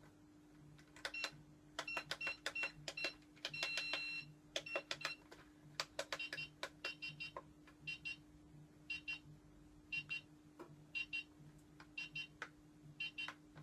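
A small battery-powered electronic gadget giving short high-pitched beeps, often two or three in quick succession, mixed with small sharp clicks, as it is switched on and fiddled with. A faint steady hum runs underneath.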